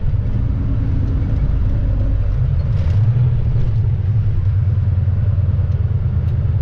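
Volvo VNL semi truck's diesel engine running steadily while the truck is driven, a low, even drone.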